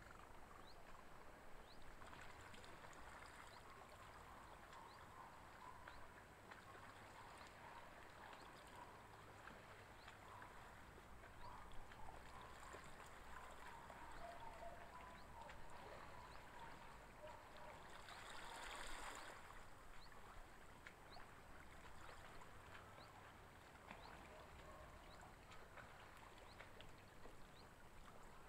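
Near silence: faint outdoor background hiss, with a brief, slightly louder swell of noise about two-thirds of the way through.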